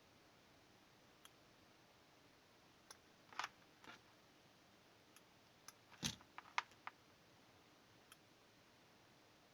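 Light, scattered clicks and taps of tools, wire and small parts being handled while soldering at a workbench, otherwise near silence; the loudest is a short cluster about six seconds in.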